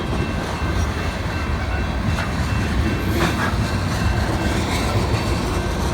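Freight train rolling past: a steady low rumble of steel wheels on rail, with faint thin high tones from the wheels and a brief clank about three seconds in.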